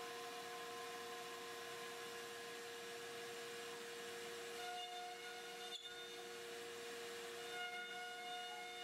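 Ooznest WorkBee Z1+ CNC router running its job: the router spindle whines at a steady pitch over a steady hiss. A second, higher whine with overtones joins in briefly about five seconds in and again near the end, as the gantry moves.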